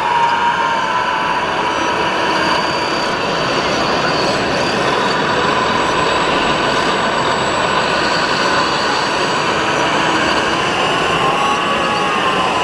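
1/14-scale RC model trucks and machines running: the steady whine of their small electric motors over a dense background din, with one whine rising and falling back about eleven seconds in.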